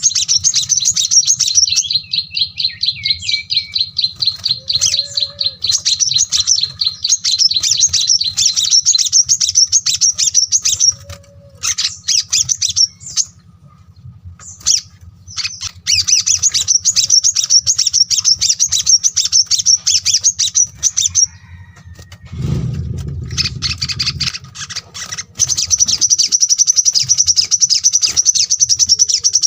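Small songbirds singing long runs of rapid, high twittering trills, broken by a few short pauses. A brief low rumble comes about two-thirds of the way through.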